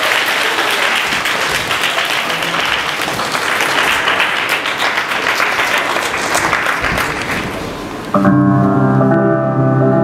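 Audience applauding, a dense steady clatter of clapping; about eight seconds in it gives way abruptly to piano music with sustained chords.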